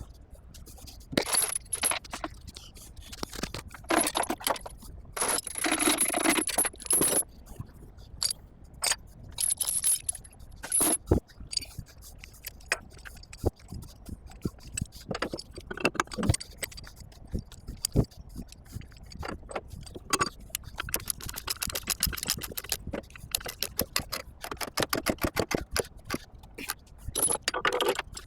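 Steel tie-down chains being handled on a lowboy trailer: links jangling, clanking and scraping against metal in irregular bursts, with runs of rapid clicking later on.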